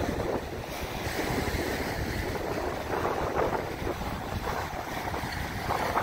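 Choppy bay waves breaking and washing up a sandy beach, with strong wind buffeting the microphone.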